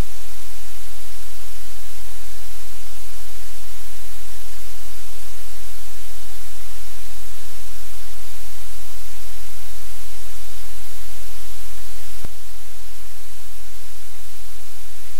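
Loud steady static hiss with a low hum underneath. About twelve seconds in there is a click and the hiss drops slightly.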